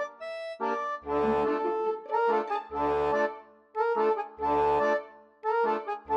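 Background music: a melody in short phrases over a low bass note that lands about every one and a half to two seconds.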